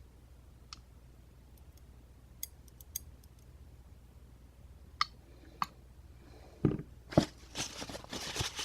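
Small lock pins and wafers being handled on a bench: a few sharp, scattered metal clicks and taps, then louder clattering and rustling handling noise near the end.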